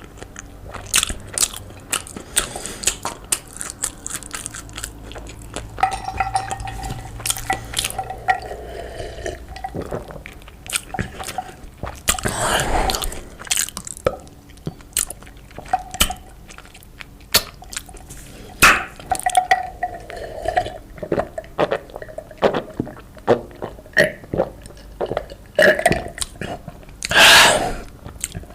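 Close-miked eating sounds: chewing with many sharp, wet mouth clicks, and two longer noisy sounds of about a second each, one near the middle and a louder one near the end.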